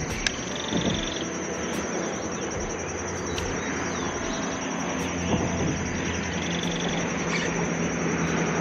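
Outdoor ambience: a steady high-pitched insect buzz, with a low distant engine hum that grows louder in the second half.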